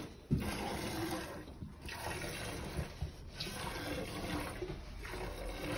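Goat's milk squirting from a hand-milked teat into a metal bucket, a steady hissing spray broken by short pauses about every second and a half. A dull knock sounds just after the start.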